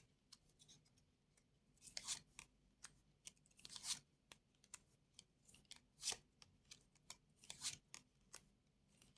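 Playing cards being handled and laid down on a table: faint, irregular papery swishes and light taps, a few seconds apart.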